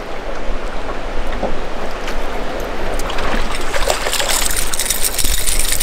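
Water splashing and churning as a hooked spotted bass thrashes near the surface while it is reeled to the boat, growing brighter and louder in the second half.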